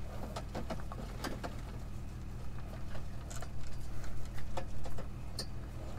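Pickup truck engine idling, a steady low hum heard from inside the cab, with a scattering of short clicks and knocks over it.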